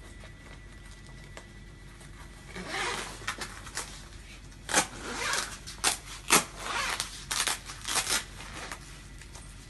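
Zipper of a padded winter jacket being pulled open, with rasps, fabric rustling and several sharp snaps. It starts after a quiet two and a half seconds and is loudest about halfway through.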